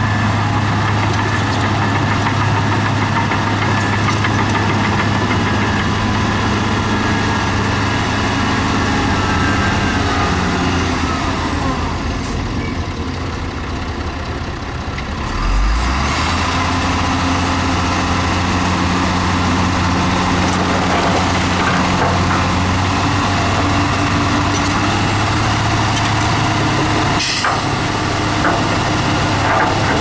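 Heavy diesel engine of earthmoving machinery running steadily. It drops in pitch about halfway through, then picks back up with a low thump, and there is a sharp knock near the end.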